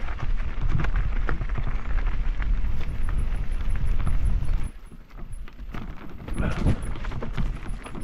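A bike clattering and rattling over a rocky trail, with wind rumbling on the microphone. The clatter eases briefly about five seconds in, then picks up again.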